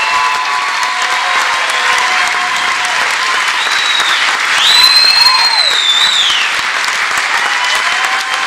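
Concert audience applauding steadily, with a long high whistle about halfway through that rises, holds and then falls away.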